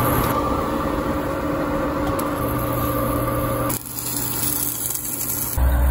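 Steady motor hum with a few held tones, as from a fan or engine running; its sound changes abruptly about four seconds in and again near the end.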